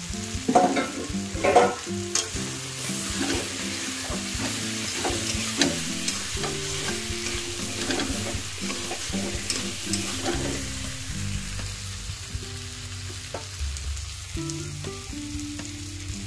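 Spatula stirring and scraping fried dried Bombay duck into sizzling masala in a metal kadai, over a steady sizzle of hot oil. The scraping strokes come thick for the first ten seconds or so, then thin out, leaving mostly the sizzle.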